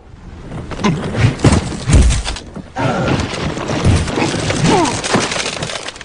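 Cartoon sound effects of skis sliding on snow, a steady hiss with heavy thuds about two seconds in. Short wordless yelps and grunts from the cartoon polar bear come over the top.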